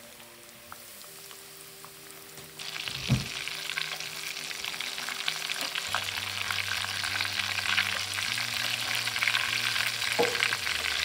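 Breaded whole smelt frying in hot oil in a cast iron skillet: a dense crackling sizzle that starts abruptly about two and a half seconds in and grows a little stronger. There are a couple of short knocks, one just after the sizzle starts and one near the end.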